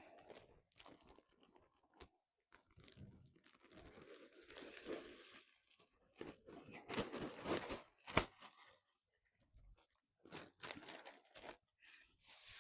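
Irregular crunching and rustling of dry plant material being handled, in short bursts with brief pauses, busiest around seven to eight seconds in.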